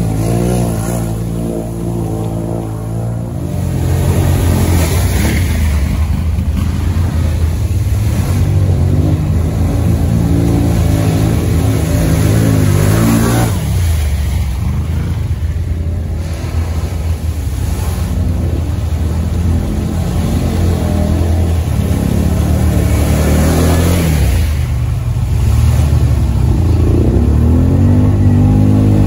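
ATV engines, among them a Can-Am Outlander 850's V-twin, revving up and down again and again under load as the quads push through mud and water.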